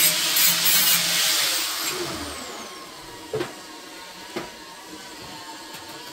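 A hand-held power tool running with a loud hiss, then switched off and winding down, its pitch falling over a couple of seconds. A few sharp knocks of metal tools being set down follow, about a second apart.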